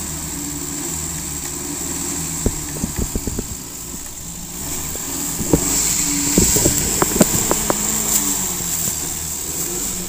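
Engine of an off-road SUV stuck in mud, running steadily and picking up about halfway through. Sharp knocks come in two clusters, one around two and a half to three and a half seconds in and a louder one around six to eight seconds in.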